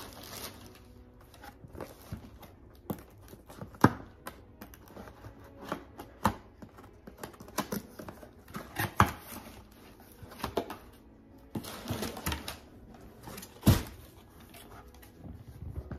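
Plastic packaging crinkling and rustling as a cardboard box is unpacked by hand, with irregular sharp taps and knocks from the cardboard and the boxed item being handled. The loudest knocks come about four seconds in and near the end.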